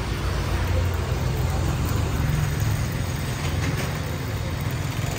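Street traffic, including a motor scooter passing close by, gives a steady low rumble with a hiss over it that swells slightly in the middle.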